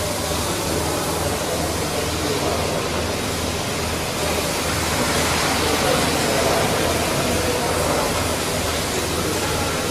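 Milking machinery running: a steady hiss with a low pulsing about twice a second underneath.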